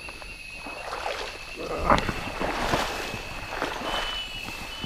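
Footsteps wading through shallow water in flooded marsh grass: several splashing, swishing steps, the loudest about two seconds in.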